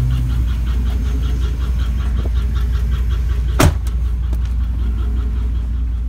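2007 Chevy Silverado 4.8 V8 idling with a rapid, even ticking that the owner takes for a valve-train fault, most likely a bad lifter. A single sharp knock about three and a half seconds in.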